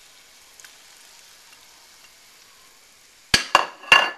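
Chicken juice boiling in a wok with a faint steady hiss. A little over three seconds in come three loud, sharp clinks with a brief ring as a plate of chopped spring onions is knocked against the wok to tip them in.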